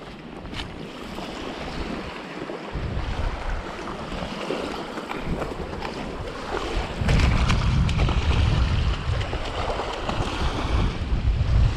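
Strong wind buffeting the microphone, gusting harder from about seven seconds in, over the wash of waves on the shore.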